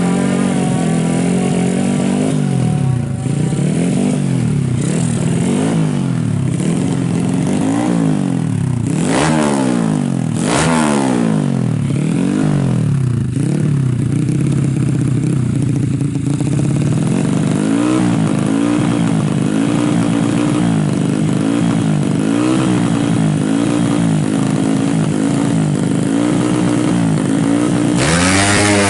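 Suzuki Smash motorcycle's bored-out 130cc race engine with an AHRS exhaust, revved up and down again and again, about once a second in the second half. Near the end it revs louder and higher.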